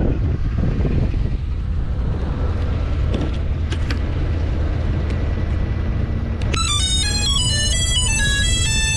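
A steady low rumble of wind and motion noise, then electronic music with stepped synth notes comes in about six and a half seconds in.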